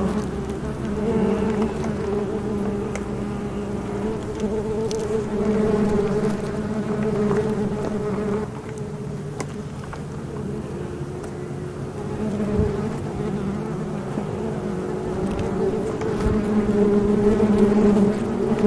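Honeybees buzzing around an opened wooden hive: a steady, wavering hum that dips for a few seconds about halfway through and grows louder near the end.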